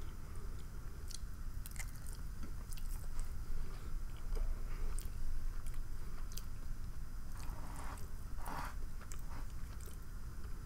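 A person chewing food close to the microphone, with scattered wet mouth clicks and a louder bite or swallow about eight and a half seconds in, over a steady low hum.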